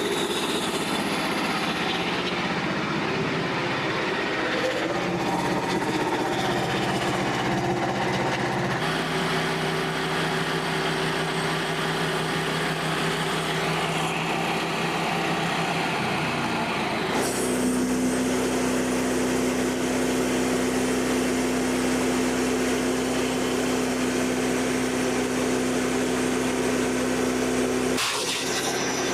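Band sawmill running steadily on its small gas engine, with a pitch that shifts to a new steady level about a third of the way in and again past halfway, then changes once more near the end.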